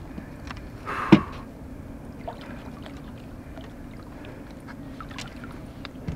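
Water splashing and lapping around a hooked wels catfish as it comes up at the surface beside a boat, over a steady low hum, with one louder, sharp sound about a second in.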